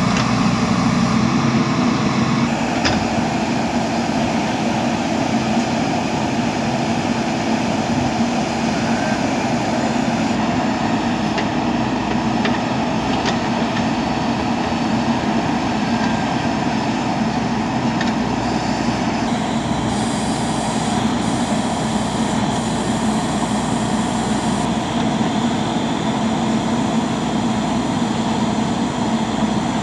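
JCB 3DX backhoe loader's diesel engine running steadily as the operator works the backhoe arm around a concrete culvert pipe.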